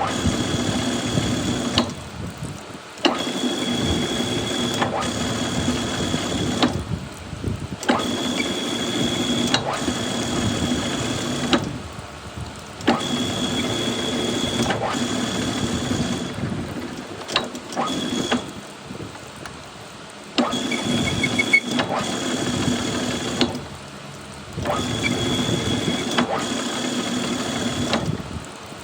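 Metal lathe running during thread cutting, with a steady high whine over its running noise. The noise comes in spells of three to four seconds, dropping away for about a second between them, again and again.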